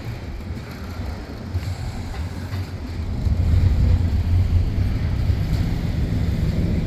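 Union Pacific train running by: a low, steady rumble that grows louder about three seconds in.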